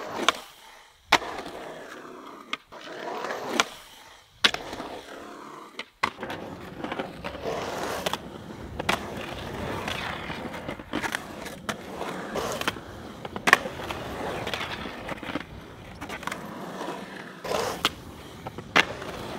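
Skateboard wheels rolling on concrete, broken by a dozen or so sharp clacks as the board pops and lands.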